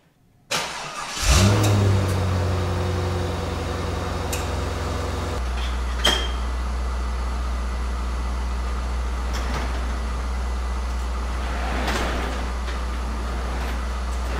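C5 Corvette's 5.7-litre V8 being started: a moment of cranking, then it catches about a second in at a raised idle, which drops to a lower, steady idle about five seconds in. A short click sounds about six seconds in.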